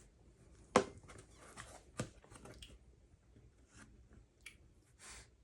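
Quiet handling sounds while bourbon is sipped from a glass: a sharp click or knock a little under a second in, a lighter one at about two seconds, and soft rustles and small mouth noises between them.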